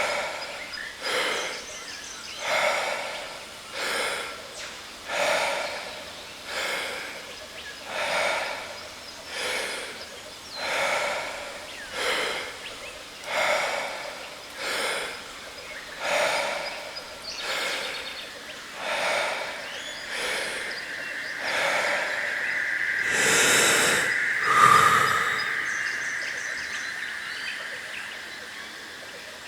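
Rapid, deep Wim Hof power breaths, one in-and-out about every second and a half, over the steady rush of a jungle waterfall. Near the end comes one longer, fuller breath while a sustained chime tone rings, signalling the end of the breathing round.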